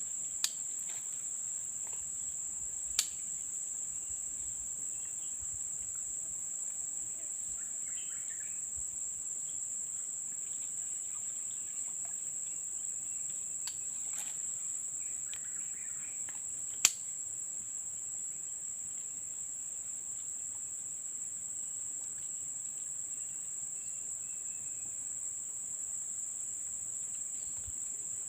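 Steady, high-pitched insect chorus, crickets or similar, chirring without a break. Three sharp clicks stand out: one near the start, one about three seconds in, and the loudest near the middle.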